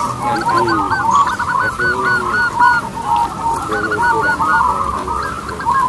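Many caged zebra doves (perkutut) cooing at once: overlapping runs of short coo notes that rise and fall, one string after another.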